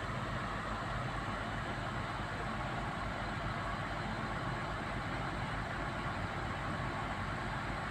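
Komatsu excavator's diesel engine running steadily at an even pitch.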